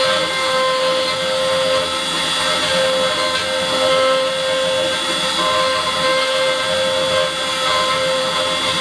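Homebrew CNC machine's spindle running with a steady whine while its end mill cuts into a metal nameplate, with a continuous hiss of cutting noise.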